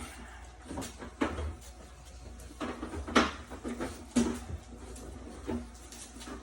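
Sharp plastic clicks and knocks, about seven spaced irregularly, as the clipped-in plastic cover of a GE dehumidifier is worked and pried loose.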